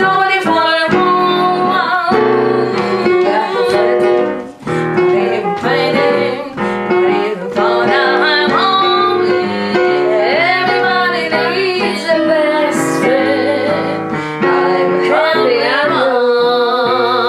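Jazz song with piano accompaniment and women's voices singing the melody, sliding between notes in a loose, improvised way over the chords.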